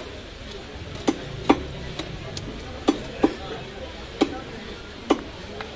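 A large curved blade chopping through katla fish pieces onto a wooden block: about half a dozen sharp chops at uneven intervals, starting about a second in, with a few lighter strikes between them.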